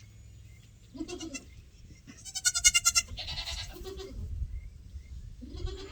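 Goats bleating, a doe in labour among them: several separate calls, the loudest a higher, quavering bleat about two to three seconds in.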